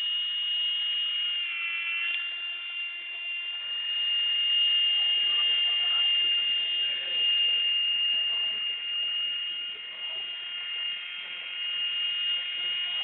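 Blade mSR micro RC helicopter's small electric motors and rotors whining steadily at high pitch while it hovers, the pitch dipping briefly about two seconds in and then holding.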